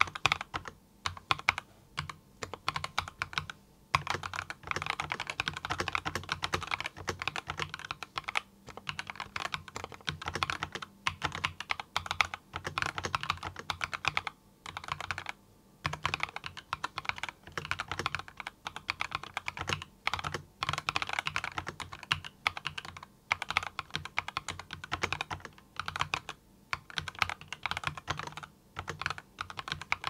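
Touch typing on a Skyloong mechanical keyboard: a steady stream of key clacks with short pauses every few seconds.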